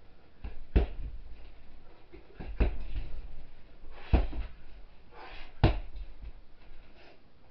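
A heavy punching bag struck by wrapped-hand punches and a bare-foot kick. There are four heavy thuds, roughly a second and a half apart, with lighter knocks between them.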